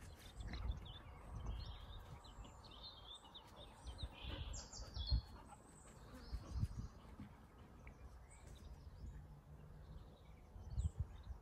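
Small birds chirping faintly here and there in the background, with irregular low rumbles on the microphone.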